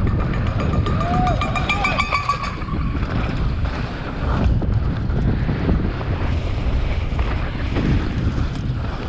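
Wind rushing over the camera microphone as a mountain bike descends a dirt singletrack at speed, with tyre and bike noise underneath. A short high ringing sound in the first couple of seconds.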